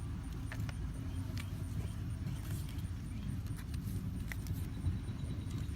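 A steady low engine rumble, like an idling motor, with scattered small clicks and taps of handling.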